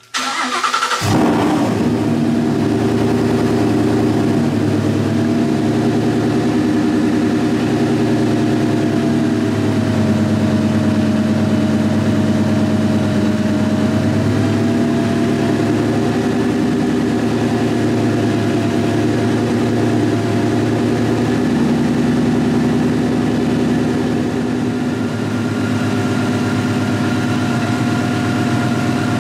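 Whipple-supercharged Ford Coyote 5.0 L V8 of a 2016 Mustang GT cranking and firing on its first start after the supercharger install, catching about a second in and then idling steadily, with a thin whine above the idle.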